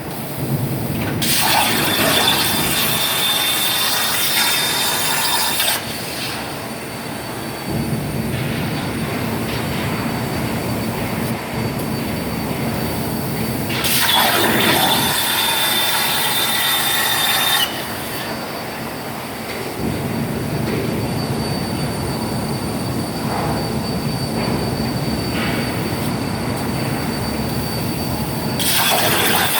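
CNC plasma torch cutting metal: a loud, hissing arc with a thin high whistle, in three spells of several seconds each, about a second in, about halfway, and near the end. A quieter steady hiss and rumble runs between the cuts.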